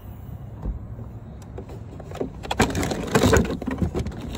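Plastic bag crinkling and rustling close up as things are loaded and handled, with scattered light knocks; the crinkling is thickest a little past halfway.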